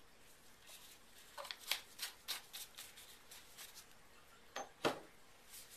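Small handling noises from a plastic squeeze bottle in a gloved hand: a quick run of light clicks and crinkles, then two sharper knocks about a second before the end as the bottle is moved away from the beaker.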